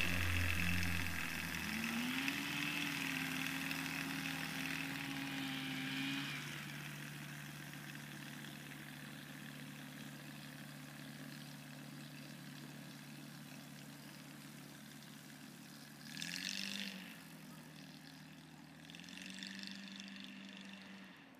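Single-engine propeller light aircraft's engine running as the plane taxis away over grass. The engine note rises about two seconds in, then fades steadily as the plane moves off, with two short bursts of throttle near the end.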